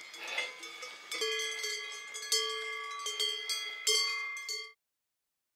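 Bells worn by cows clanking irregularly, several bells ringing over one another with a few louder clangs. The sound cuts off abruptly near the end.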